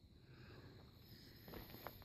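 Near silence: faint background hiss and rumble, with a couple of soft clicks near the end.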